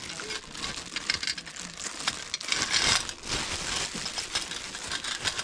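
Thin plastic bag crinkling and rustling in the hands as it is handled, an irregular run of crackles.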